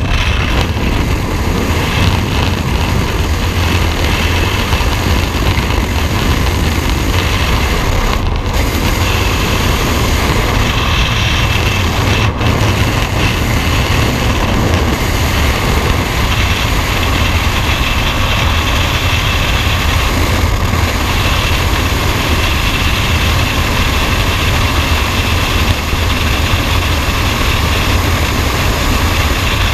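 Skydiving freefall wind rushing over a helmet-mounted camera's microphone: a loud, steady, deep wind noise that does not let up.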